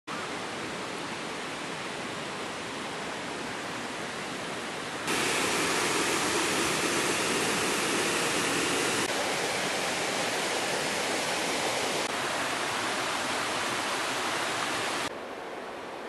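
Steady rushing of a mountain stream, an even hiss of running water. It gets abruptly louder about five seconds in and drops back near the end.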